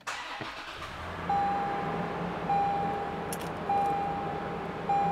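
Toyota 4Runner's 4.0-litre V6 starting and settling into a steady idle. A dashboard warning chime beeps four times over it, each beep about a second long and a little over a second apart.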